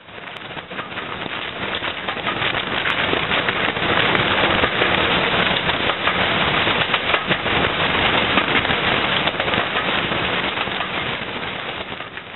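Steam train running at speed, heard from an open carriage window just behind the locomotive, 34053 'Sir Keith Park', a Bulleid Battle of Britain class Pacific: a dense, fast crackling rattle of exhaust and wheels on rail, with wind rush. It builds over the first few seconds and fades near the end.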